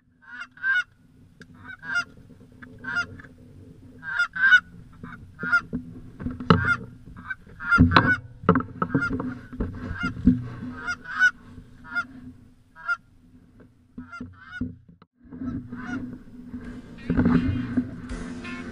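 Geese honking over and over in short calls, often a second or less apart, over a steady low hum. There are a few dull thumps in the middle.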